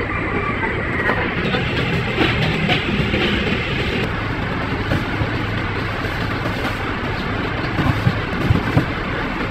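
Truck diesel engine idling steadily under a constant rush of noise, with a few short knocks near the end as cargo is handled.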